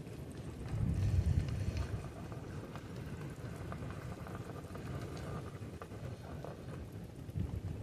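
Low rumbling wind noise on the microphone, swelling louder for about a second near the start, over faint scattered crackles and ticks.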